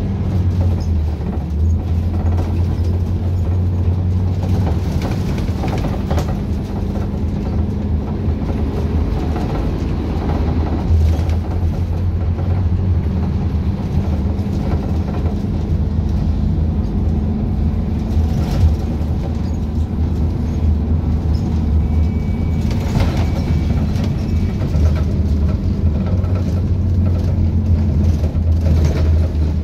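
Cabin noise inside a Caio Millenium bus on a Scania K250UB chassis under way: the diesel engine's steady low drone with rattling from the body and fittings. About 23 seconds in, a short high steady beep sounds for about a second and a half.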